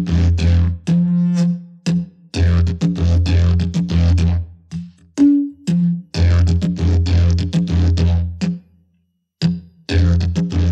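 Music: a didgeridoo playing a low drone in a pulsing rhythm, with sharp percussive accents. It stops briefly, about nine seconds in.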